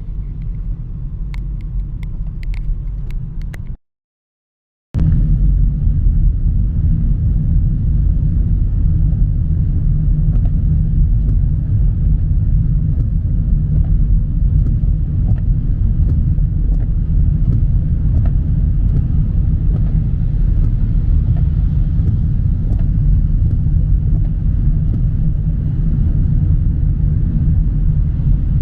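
Steady low road rumble inside a moving car's cabin on a rain-wet highway, with a few faint ticks in the first seconds. About four seconds in it cuts to dead silence for about a second, then comes back louder and steady.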